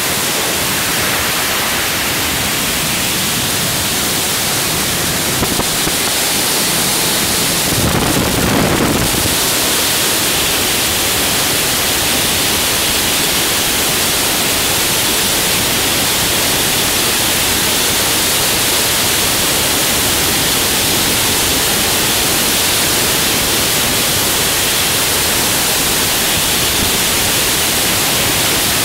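Loud, steady rush of freefall wind over a helmet-mounted camera microphone, with a brief stronger buffet about eight seconds in.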